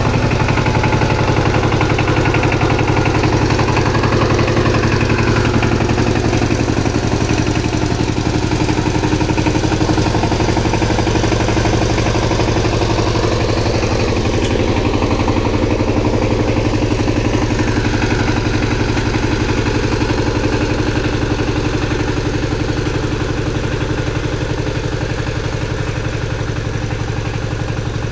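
Two-wheel power tiller's single-cylinder diesel engine running steadily with a rapid, even beat as it drives the tiller up out of the mud, growing a little fainter over the last several seconds as the machine moves off.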